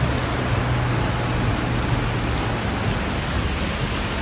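Heavy rain in a downpour: a steady, dense hiss. A low steady hum runs underneath for the first two seconds or so, then fades.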